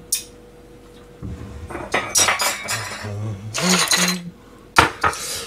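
Ceramic plates and bowls clinking and clattering as they are handled and set down on a stainless-steel kitchen counter, with one sharp knock of a dish near the end.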